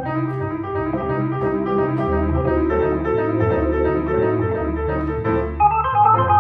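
A grand piano and an electric stage keyboard play a swing jazz tune together, with repeated chords in the middle register over a bass line. Higher melody notes come in near the end.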